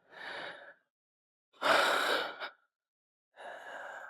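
A man breathing heavily, with three audible breaths; the middle one is a loud exhale.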